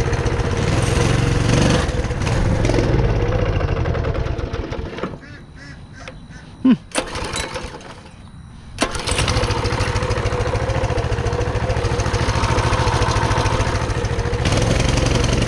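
Coleman CT200U-EX mini bike's single-cylinder engine running on choke after a few weeks unused; it dies about five seconds in, a few clicks and a sharp knock follow, and it catches again at about nine seconds and keeps running.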